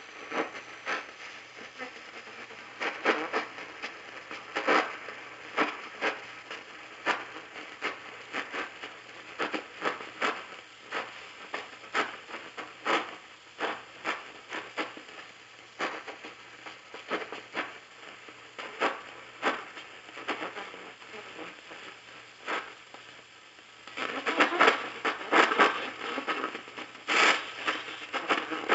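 AM radio receiver tuned to a weak, distant station: mostly hiss and static crackle over a steady low hum, with the station's audio buried under the noise. About 24 seconds in, the signal comes up louder and stays up.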